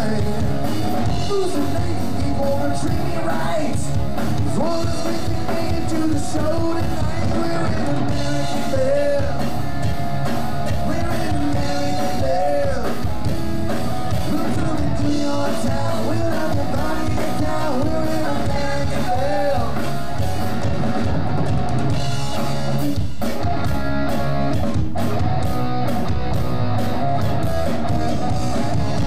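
Live rock band playing: electric guitars, bass and drum kit, with a man singing lead.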